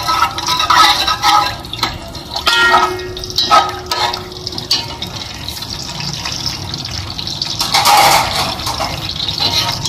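Whole spices sizzling in hot ghee in a metal pot, with a metal slotted spoon stirring and scraping against the pot. The scraping is loudest about eight seconds in.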